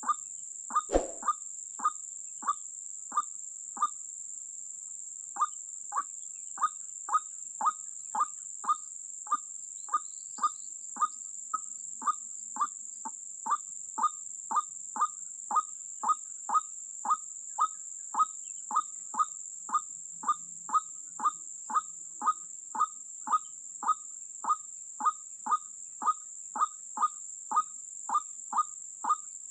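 White-breasted waterhen (ruak-ruak) calling: a short, sharp call note repeated monotonously about one and a half times a second, pausing briefly about four seconds in. A steady high hiss runs behind it, and a single sharp click sounds about a second in.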